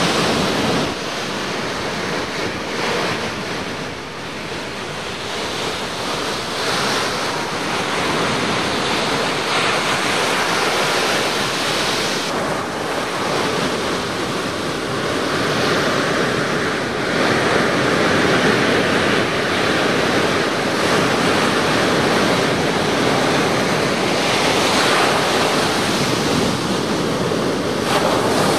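Ocean surf breaking on a beach: a continuous wash of waves, swelling in loudness now and then as waves break.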